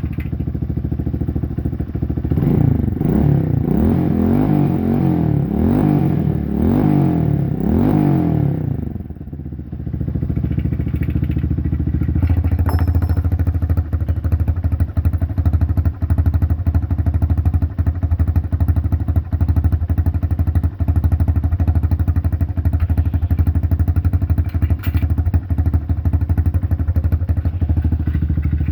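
Motorcycle engine with a homemade muffler, blipped through a series of quick revs that rise and fall for several seconds, then dropping back and settling into a steady idle.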